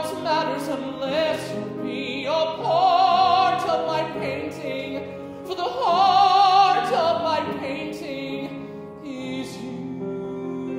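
A male singer holding two long notes with wide vibrato over a musical accompaniment. About nine seconds in the voice stops and the accompaniment carries on alone.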